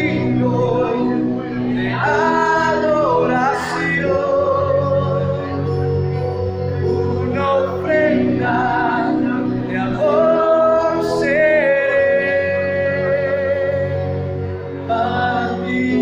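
A worship song in a church: voices singing held, wavering melody lines over steady sustained instrumental accompaniment.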